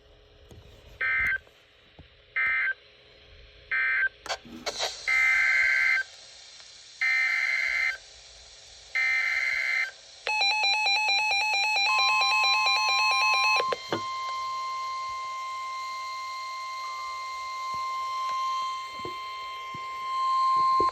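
NOAA Weather Radio Emergency Alert System tones between two warnings: three short screeching SAME data bursts that end the severe thunderstorm warning, then three longer SAME header bursts announcing the flash flood warning. Then a rapid pulsing electronic beeping, and, about twelve seconds in, the steady 1050 Hz weather radio warning alarm tone, which holds to the end.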